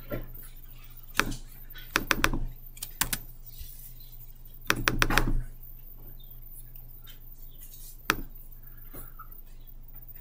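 Scattered clicks and taps of a computer keyboard and mouse: single clicks, plus quick runs of clicks about 2 seconds in and about 5 seconds in, over a steady low hum.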